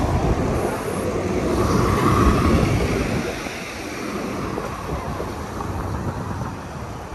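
Busy city street traffic noise: a dense, low rumble of passing vehicles, loudest for the first three seconds and then easing off.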